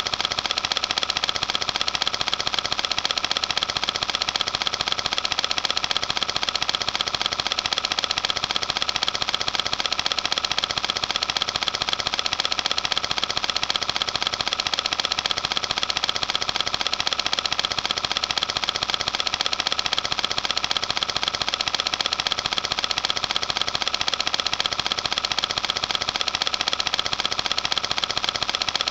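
Cine film projector running: a steady, rapid, even clatter from the film transport.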